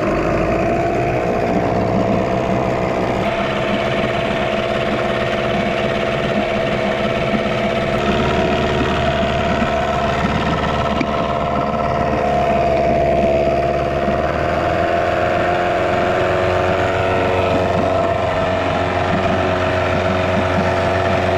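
Yamaha 6 hp two-stroke outboard motor running steadily with its lower unit in a test drum of water, the propeller churning the water.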